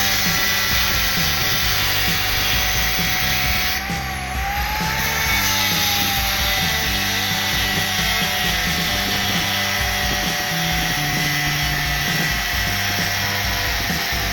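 A power tool running with a steady high whine and hiss; the whine wavers and the hiss thins briefly about four seconds in. Background music plays underneath.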